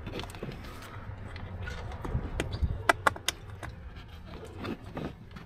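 Sparse light clicks and taps of hands working a plastic under-dash panel and its fasteners back into place, with three sharp clicks close together about three seconds in, over a faint low hum.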